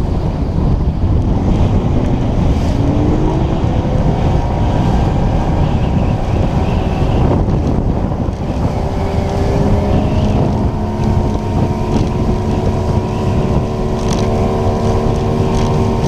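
Outboard motorboat under way, with heavy wind noise on the microphone and rushing water over the engine. The engine's pitch climbs a few seconds in and holds steady through the second half.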